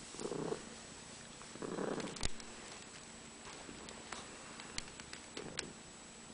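Domestic cat purring in three short spells, at the start, about two seconds in and near the end, with a few faint sharp clicks between, as kittens suckle at their mother.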